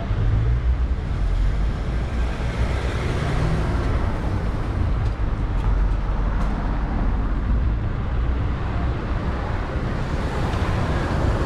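City road traffic noise, with a steady low rumble.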